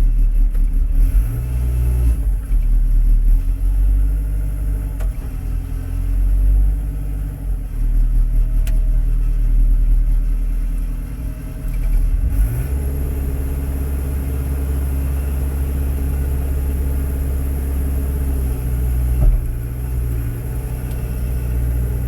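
Matbro telehandler's diesel engine running, heard from the cab, its note shifting as the joystick works the hydraulics and stepping up to a higher, steady pitch about halfway through, with a faint high whine joining it.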